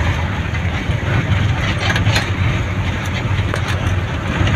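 Steady engine and road noise from a moving vehicle.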